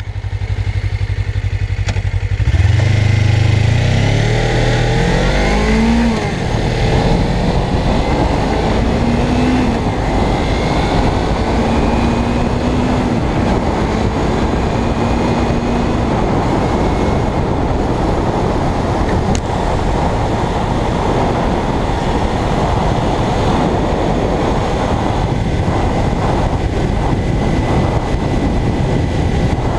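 Suzuki GSX250R's 248 cc parallel-twin on its standard exhaust, accelerating away with the engine note rising in pitch over the first few seconds, then holding steady at cruising speed. Wind rush on the microphone grows to mask the engine over the later part.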